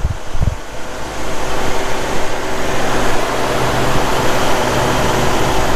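The engine of a 1981 Jeep CJ7 running steadily on its freshly rebuilt and tuned Weber 32/36 carburetor, with a steady low hum. A few low thumps come in the first half second.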